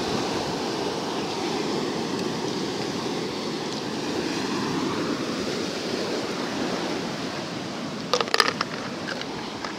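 Sea surf washing over a rocky shoreline: a steady rush of waves. A quick run of sharp clicks a little after eight seconds in.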